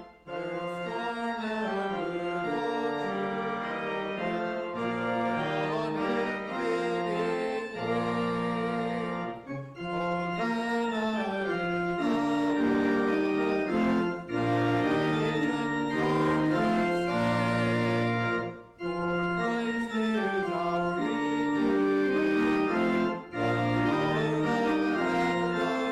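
Organ playing slow sustained chords over low bass notes, in phrases separated by brief pauses.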